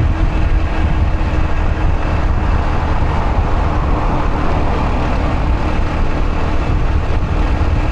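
Riding a Yamaha YBR125 motorcycle: heavy wind rumble on the microphone over the steady note of its 125 cc single-cylinder four-stroke engine, with a louder rush of road noise in the middle.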